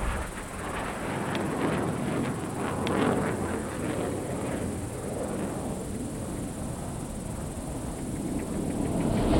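A low rumbling noise bed with a few faint ticks, then the rushing sound of an approaching jet aircraft swelling near the end.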